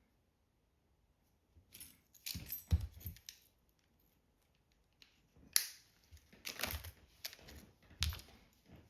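Clicks, knocks and rustling of small parts being handled, in two bursts: one about two seconds in and another from about five and a half seconds, each with a few sharper clacks.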